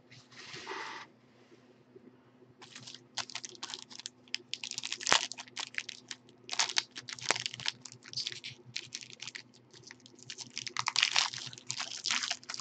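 Foil wrapper of a trading card pack crinkling and crackling as it is torn open by hand. After a brief rustle at the start, the crackles come quick and irregular from about three seconds in, with one sharper crack near the middle.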